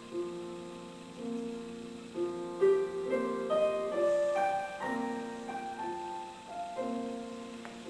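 Background piano music: a slow, gentle melody over repeating chords, climbing higher in the middle.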